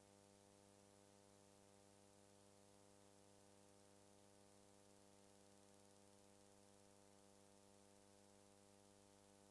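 Near silence: a faint steady electrical hum with hiss, with no sound from the scene itself.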